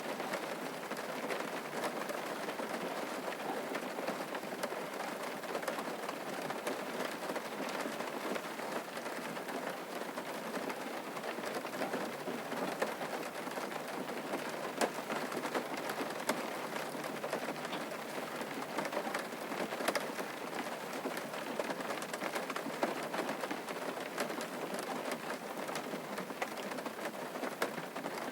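Steady rain: a constant hiss with many sharp ticks of single drops hitting a surface.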